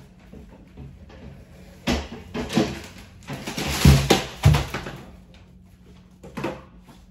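Things being handled and moved about while unpacking: rustling with several knocks, and two heavier thumps about four seconds in.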